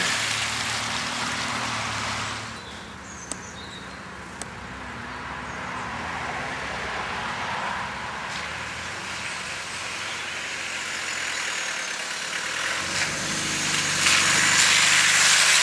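Land Rover Discovery's engine running as the 4x4 drives through muddy puddles, with a rush of splashing water at the start and again near the end.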